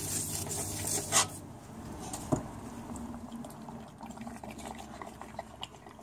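Solvent from a parts-washer flow brush washes over a 4L60E transmission manifold pressure switch plate in a steel sink, flushing fine metal out of it. The flow eases after about two seconds, and the plate knocks sharply against the sink twice, about a second in and again a second later, among small clicks and drips.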